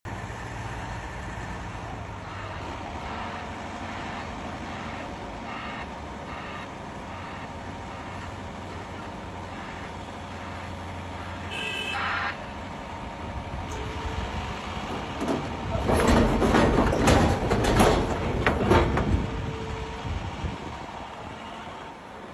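Heavy machinery running steadily, with a brief squeal about halfway through, then several seconds of loud clattering and crashing impacts.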